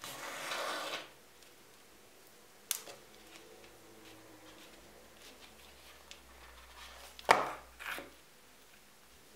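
Hand saddle-stitching of leather: thread drawn through the stitching holes with a long rasp in the first second, a single click a little later, then two short sharp rasps near the end, the first the loudest, as the stitches are pulled tight.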